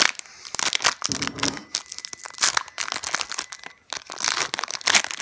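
Foil wrapper of a Panini Prizm football card pack being torn open and crinkled by hand: a dense run of sharp crackles and rustles, with a short lull near the end.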